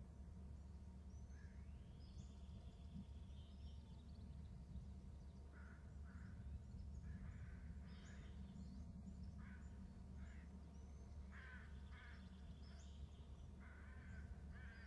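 Crows cawing repeatedly in short calls, with a few higher whistled bird notes in the first few seconds, over a steady low rumble.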